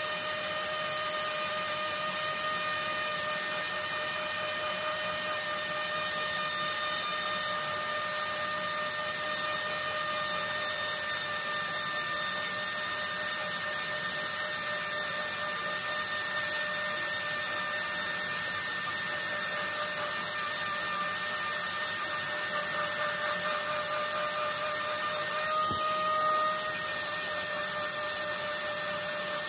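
Pneumatic air pen (air scribe) running against the rock matrix around an ammonite to smooth it off: a steady high buzz over air hiss, with a brief shift in pitch near the end.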